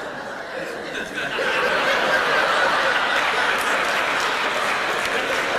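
Audience laughing, growing louder about a second in and holding.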